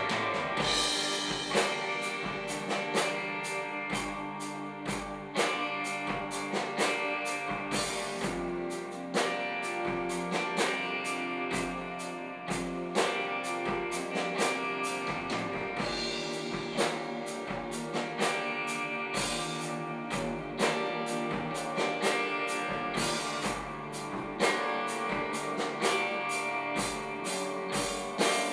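Live rock band playing: two electric guitars and an electric bass over a drum kit keeping a steady beat.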